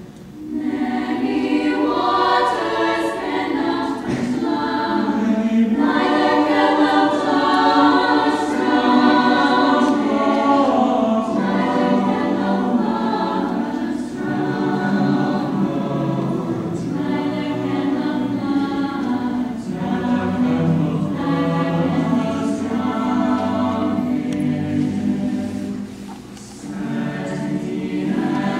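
Mixed-voice choir of young men and women singing in parts, with short breaks between phrases.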